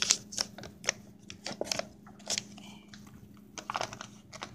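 Irregular light clicks and paper crinkles of a dollar bill being handled and pushed into a vending machine's bill acceptor, which is not yet taking it. A low steady hum runs underneath.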